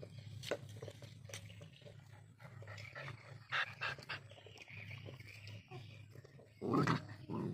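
Two dogs squabbling over watermelon: panting, snaps and scuffling clicks, with a loud snarling burst near the end.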